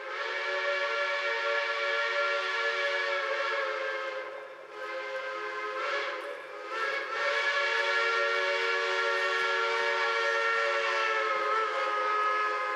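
Ashton six-inch three-chime steam whistle on a Baldwin 2-8-2 steam locomotive sounding a chord in four blasts, long, long, short, long: the grade-crossing signal as the train approaches. The final blast is held longest, for about five seconds.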